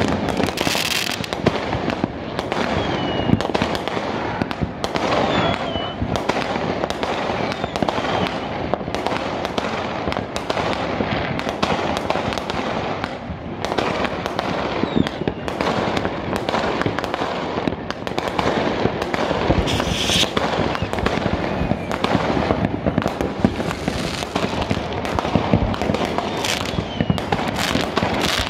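Many fireworks going off at once across a city: a dense, unbroken crackle of bangs and bursts, with a few short whistles among them.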